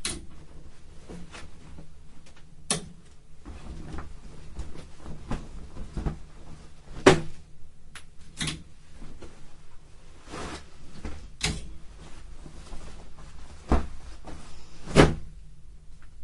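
Cardboard boxes being handled and packed: an irregular string of knocks, thuds and scrapes, with the loudest thumps about seven seconds in and twice near the end.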